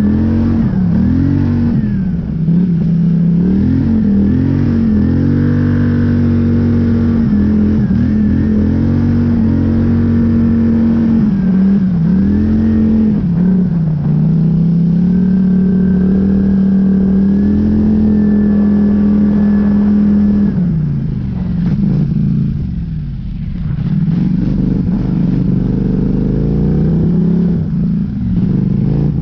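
Polaris Scrambler 850 ATV's twin-cylinder engine revving up and down under load through deep snow. It holds steady high revs through the middle, eases off about two-thirds through, then picks up again near the end.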